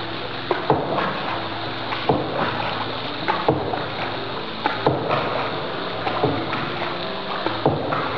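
Paddle boat moving through a cave: a steady wash of water with irregular sharp knocks of wooden paddles against the boat's hull.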